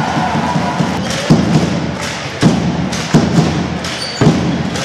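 Basketball bouncing on a sports hall floor, a thud roughly once a second over the din of the hall.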